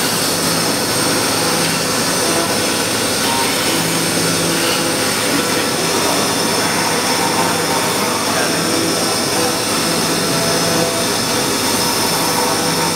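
CNC milling machine cutting a balsa wood blank: the spindle and cutter run steadily with a hissing whine, and a low hum comes and goes every few seconds.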